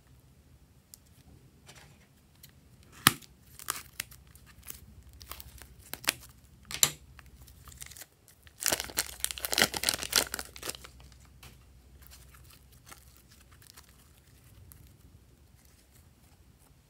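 Plastic piping bag crinkling and crackling as it is squeezed and crumpled to pipe slime out, with a few sharp clicks early and a dense burst of crinkling about nine seconds in.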